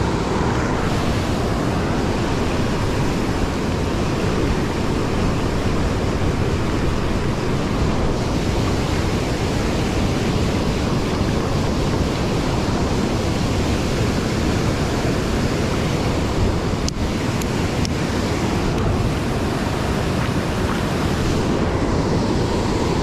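Steady rush of river water pouring over a low concrete weir into whitewater, a constant, even roar.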